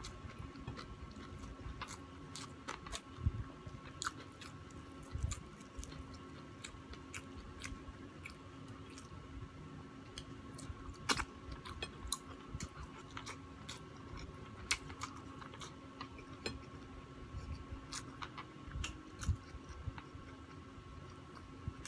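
Close-miked chewing as a person eats with bare hands, with many sharp crunches and wet mouth clicks scattered through it. A faint steady hum runs underneath.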